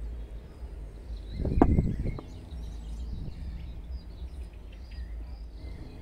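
Outdoor ambience: faint bird chirps over a steady low rumble, with a brief knock about one and a half seconds in.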